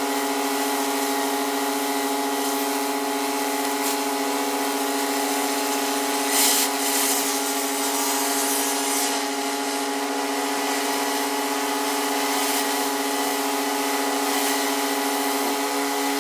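Pressure washer running steadily: an unchanging machine hum under the continuous hiss of the high-pressure water jet on concrete, with a brief louder burst of hiss about six seconds in.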